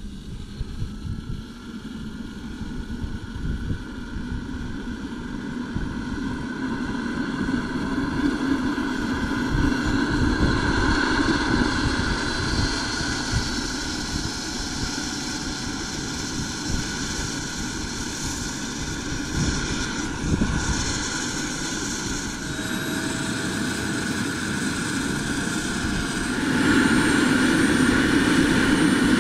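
Small gas-turbine engine of a radio-controlled MD-600N scale helicopter starting and spooling up to ground idle, its whine rising in pitch over the first ten seconds or so. About three seconds before the end it gets louder, running at flight RPM.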